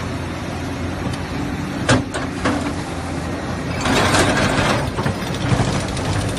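Excavator fitted with a hydraulic ripper: the diesel engine runs with a steady low hum. A few sharp knocks come about two seconds in, and a louder, rough rush follows for about a second midway, as the ripper works the ground.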